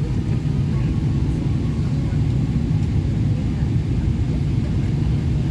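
Steady low rumble of cabin noise inside a Boeing 777-300ER in flight: engine and airflow noise, with a few faint steady tones above it.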